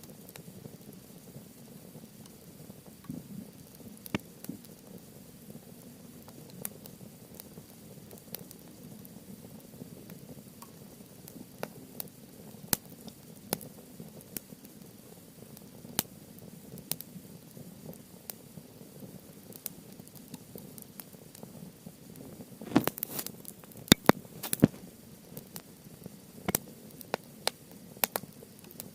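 Wood campfire crackling: scattered sharp pops and snaps over a low, steady hiss, with a quick run of louder pops about three quarters of the way through and a few more near the end.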